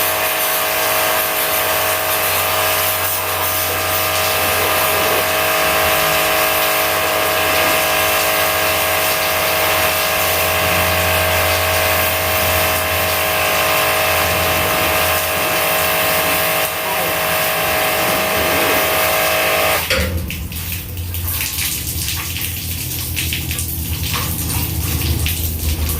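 A motor-driven water pump runs with a steady whine over the hiss of spraying water, as when washing down an air-conditioner coil. About twenty seconds in, the whine cuts off suddenly, leaving a low hum and splashing water.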